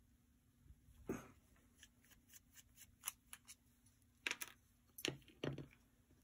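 Faint, scattered clicks and light clinks of the small metal parts of a vintage Penn Line HO-scale GG1 model's motor truck being handled during disassembly. The sharpest clicks come about a second in and again a little past four seconds.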